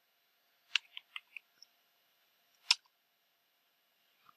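Computer keyboard keystrokes: a quick run of about five key clicks about a second in, then a single louder keystroke, the Enter key, a little past halfway, and one faint click near the end.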